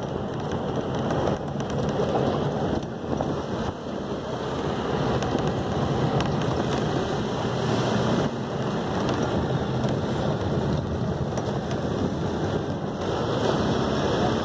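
Bus driving along a gravel mountain road, heard from inside: a steady rumble of engine and road noise, with wind buffeting the microphone.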